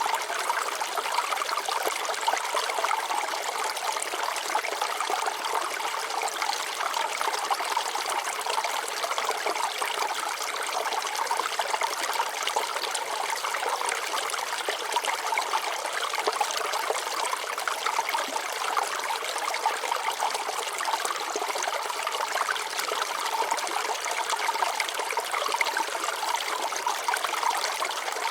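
Shallow water flowing and trickling over rocks in a small stream, a steady babble of many fine splashes with no change.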